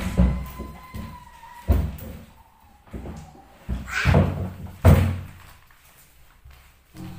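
About five sharp knocks and thuds at uneven intervals, with a short scraping sound about four seconds in.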